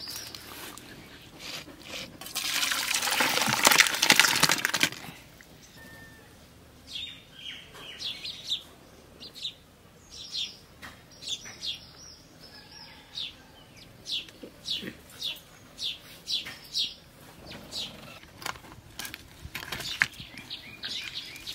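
Crab curry poured out of a clay pot into a steel pan, a splashing pour of about two and a half seconds, followed by birds chirping repeatedly with short, high calls.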